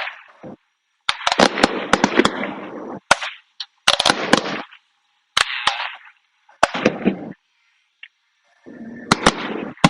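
Fireworks display: clusters of rapid sharp bangs and crackling, about five bursts, with the sound dropping out abruptly to silence between them.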